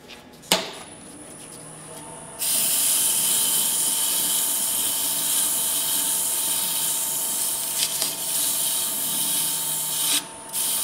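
Wood lathe starting with a sharp click, its motor then humming steadily. An abrasive pad pressed against the spinning wooden bell blank makes a loud, even hiss of sanding for about eight seconds; it stops shortly before the end and resumes briefly.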